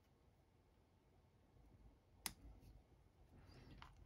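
Near silence, with one sharp click about two seconds in: sprue cutters snipping a small plastic part off its sprue.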